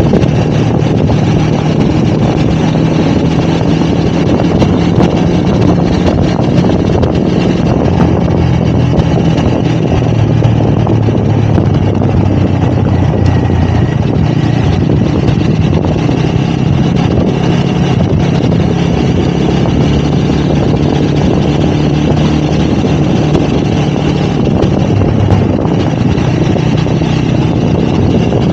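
Motorcycle engine running steadily under way, with wind noise on the microphone.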